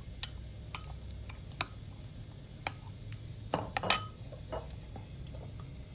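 Metal spoon clinking against a bowl while stirring a chili fish-sauce dip: a few scattered clinks, then a quick cluster of louder ones about three and a half to four seconds in.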